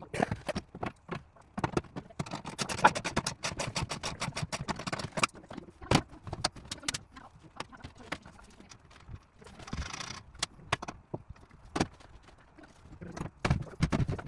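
A hand blade scraping and clicking at the edge of a van's roof vent opening as the cut edge is cleaned up: quick, dense strokes for about the first five seconds, then sparser single clicks, with one longer scrape about ten seconds in.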